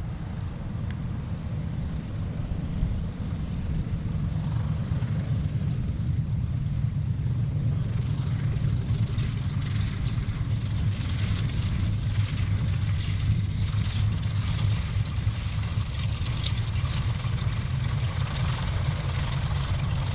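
Fairchild C-123 Provider's twin Pratt & Whitney R-2800 radial piston engines and propellers droning steadily as the transport taxis past. The sound grows a little louder and harsher from about a third of the way in as the aircraft turns side-on.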